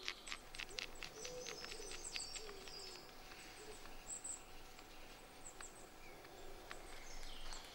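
Flint blade scraping horse's hoof fungus tinder into fibres: a run of faint quick scraping strokes over the first few seconds. A low bird call sounds faintly twice in the background.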